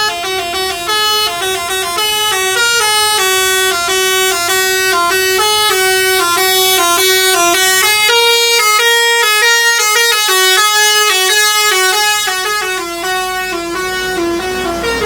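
Indonesian bus 'telolet' (basuri) musical horn playing a tune: a loud run of quick, stepped horn notes that goes on without a break.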